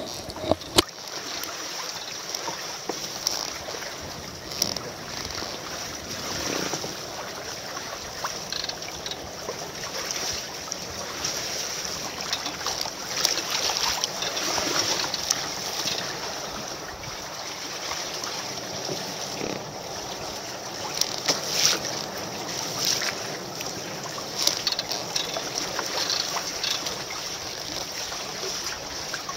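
Rough sea waves surging and breaking against rocks, with frequent short splashes close by and wind on the microphone.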